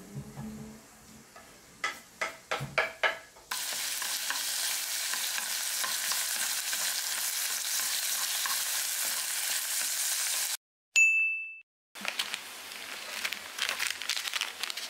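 Pork belly and onions sizzling steadily as they are stir-fried with chopsticks in a wok on a portable gas burner. A few sharp clicks come just before the sizzle starts. The sizzle cuts off suddenly about ten and a half seconds in, followed by a short bright ding.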